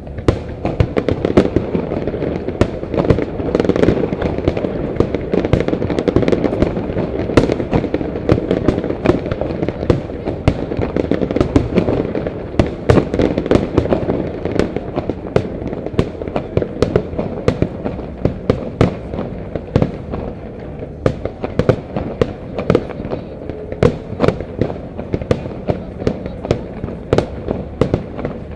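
Fireworks display: a dense, rapid run of overlapping bangs that starts suddenly and keeps going, busiest in the first half.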